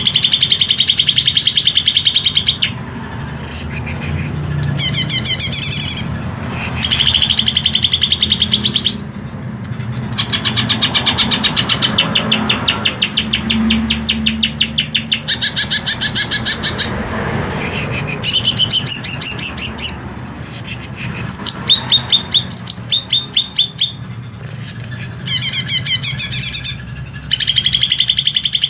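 Cucak ijo (greater green leafbird) singing loud, harsh phrases: fast trills alternating with higher sweeping runs, in bursts of one to three seconds with short breaks between them.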